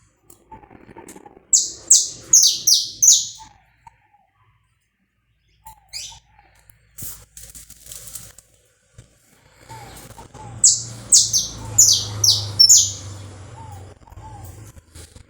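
Saffron finch singing: two loud phrases of about six quick, high, downward-sweeping notes, one about a second and a half in and one about ten seconds in, with faint short calls between them.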